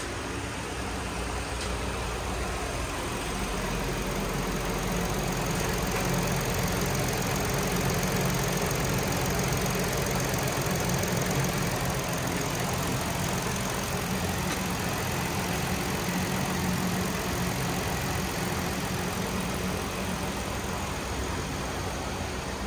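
2014 Ford Taurus 3.5-litre V6 idling steadily.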